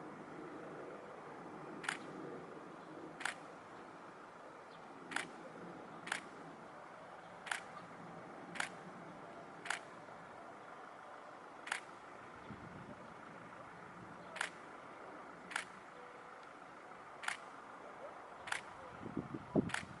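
Camera shutter clicking in single shots, about thirteen times, irregularly spaced roughly a second or so apart, over a faint steady background. A short cluster of low knocks comes near the end.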